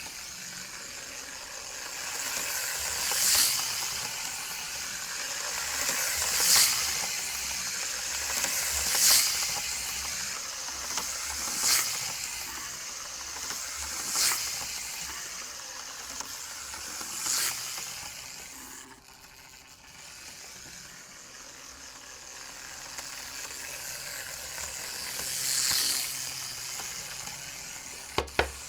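T-gauge Hankyu 9000 model train running on its track: a steady, high hissing whir from the tiny motor and wheels, swelling every few seconds as it comes close. It fades for a couple of seconds past the middle, and two sharp clicks come near the end.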